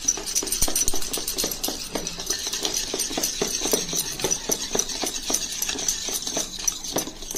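Wire balloon whisk beaten quickly by hand through a liquid cream mixture in a metal bowl, the wires clicking and scraping against the bowl in a fast, steady rhythm with a wet swishing.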